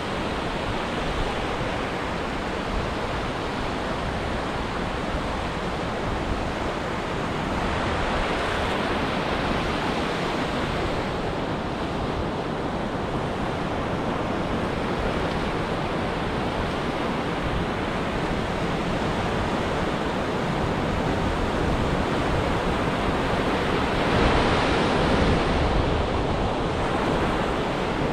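Ocean surf washing onto a beach in a steady wash, with waves breaking louder about a third of the way in and again near the end.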